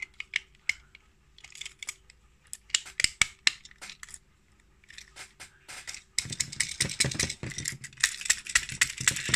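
Plastic Takara Tomy toy locomotive being handled: scattered sharp plastic clicks and knocks. About six seconds in they turn into a dense, louder clatter as the toy is shaken and worked while it fails to run.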